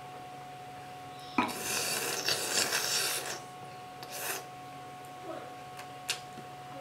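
Wine being sucked noisily through a drinking straw: a raspy slurping that starts suddenly about a second and a half in and lasts about two seconds, then one shorter slurp.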